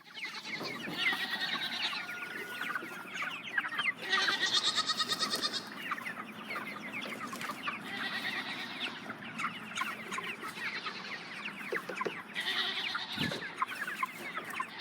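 A flock of chickens clucking and peeping, with many short calls overlapping and a few louder bouts of calls. There is one soft thump near the end.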